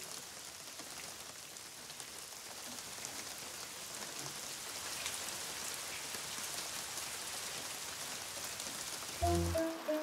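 Heavy rain pattering steadily on a roof, gradually growing louder. Near the end a few short pitched notes step downward.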